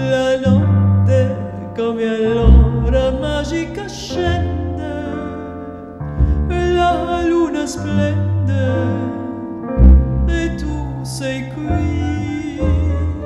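A soprano singing with vibrato over a string ensemble of violins and cellos.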